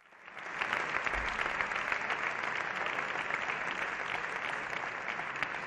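Many parliamentary deputies applauding, a dense patter of hand claps in a large chamber. It swells up over the first half second and begins to thin near the end.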